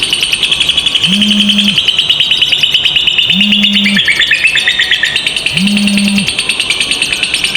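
Lovebirds in a long 'ngekek', a fast, unbroken chattering trill of high, even clicks, dropping slightly in pitch in the middle. Under it a low hum pulses about every two and a quarter seconds.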